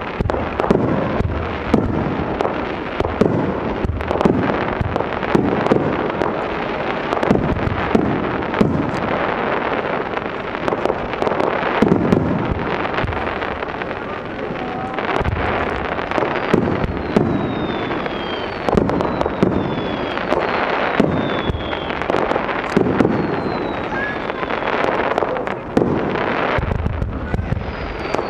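Fireworks display: aerial shells bursting in quick, overlapping bangs with rumbling echoes and crackle, and several falling whistles in the second half.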